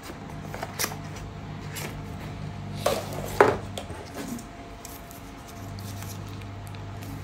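Handling sounds of a smartphone unboxing: a paperboard box tray and a plastic-wrapped phone being moved and gripped on a wooden table, with scattered small clicks and rustles and a couple of louder knocks near the middle.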